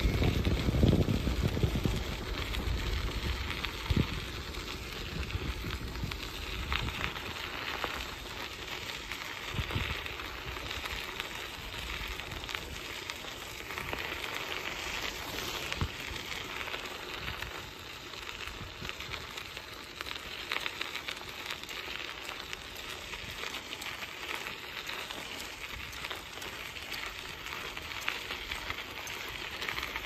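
Bicycle tyres rolling over a gravel road, a steady crackling hiss, with wind buffeting the microphone in the first couple of seconds.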